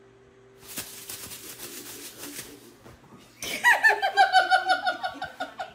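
A person laughing in a rapid, high-pitched run of short bursts, starting about three and a half seconds in after only faint low sound.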